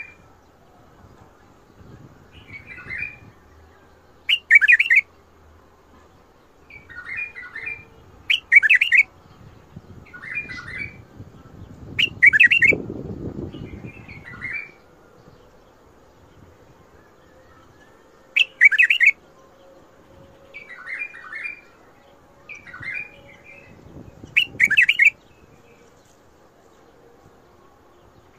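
White-eared bulbul (Iraqi bulbul) singing short, bubbling, warbling phrases about every two seconds, softer phrases alternating with louder, brighter ones. A faint low rumbling noise sits under the song around the middle.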